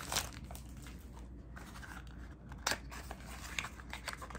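A small cardboard box of cleansing foam being handled and opened: light rustling and scraping of the card, with scattered small clicks and one sharper click about two-thirds of the way in.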